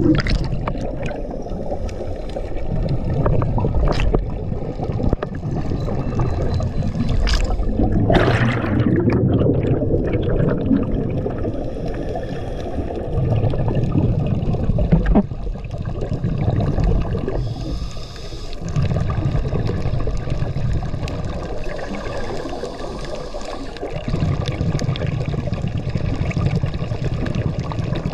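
Underwater scuba breathing: regulator exhaust bubbles rumble out in surges every few seconds, with scattered sharp clicks between, and a louder bubbling rush about 8 seconds in.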